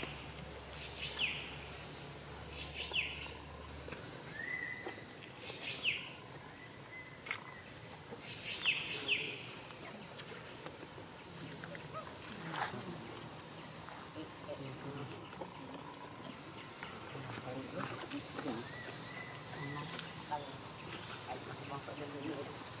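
A steady, high-pitched drone of insects, with short chirping calls that sweep down in pitch, one every second or two through the first ten seconds.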